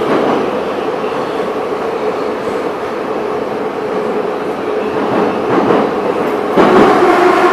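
Moscow Metro Ezh/Em-series subway train running through a tunnel, heard from inside the car: a steady rumble of wheels and running gear with a held tone, growing louder near the end.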